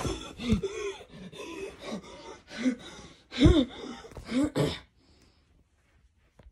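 A young voice making wordless vocal noises: short gasps and groans that rise and fall in pitch, for about five seconds, then stopping.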